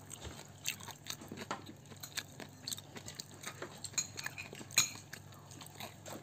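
Close-up eating sounds: chewing, and small crackles of fingers picking apart fried catfish on a plate, with one sharper click about five seconds in.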